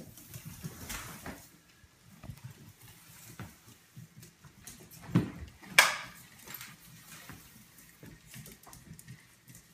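Broom bristles brushing and tapping on a vinyl floor while a small puppy scrabbles at the broom head, its claws ticking on the floor. There are a few scattered small clicks and knocks, with a dull thump and then a sharp, loud knock about five to six seconds in.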